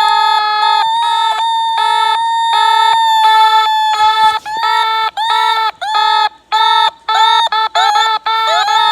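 Synthesized mock emergency-alert alarm tones: a steady high tone held under a chord of electronic tones that pulses on and off about two to three times a second. The pulses turn choppier in the second half, and rising swoops come in near the end.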